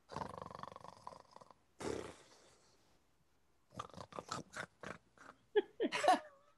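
A man's voice imitating a tiger: a rough growl lasting about a second and a half, then a second short growl. After a pause come a run of quick clicks and a few short vocal cries that slide up and down in pitch.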